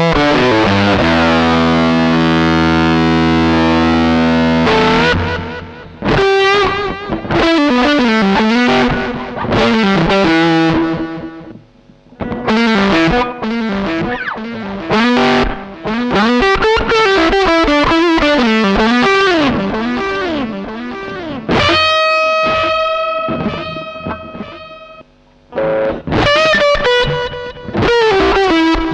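Electric guitar played through distortion pedals: a chord held for about five seconds, then single-note riffs with string bends, and a chord left ringing for a few seconds about three-quarters through before the playing picks up again.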